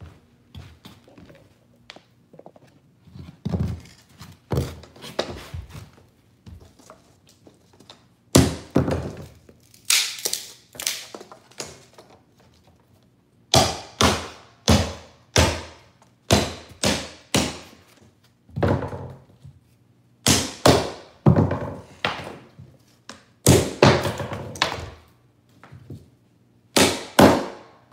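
Hammer driving the nails of wooden carpet tack strip into the subfloor along a wall. Runs of several sharp strikes come one after another, with short pauses between the runs.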